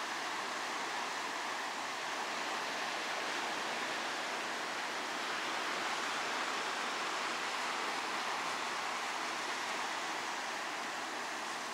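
Sea surf washing steadily, an even rushing with no distinct breaks or swells.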